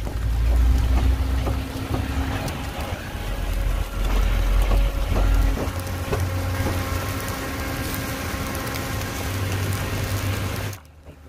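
Wind rumbling on the microphone outdoors, with a faint steady hum behind it; it cuts off abruptly near the end.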